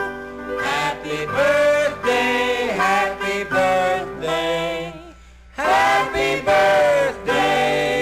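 A song with sung vocals, moving through held notes; it drops away briefly about five seconds in, then comes back in full.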